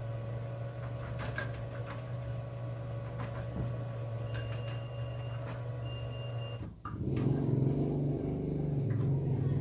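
Motor of a homemade well-drilling machine running with a steady low hum. About seven seconds in, the sound drops out for a moment and comes back louder and rougher.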